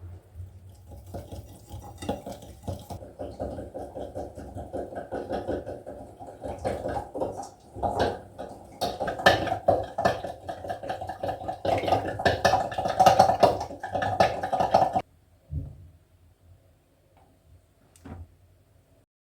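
A busy run of clinks and knocks from dishes and utensils being handled, stopping suddenly about fifteen seconds in, with one more click near the end.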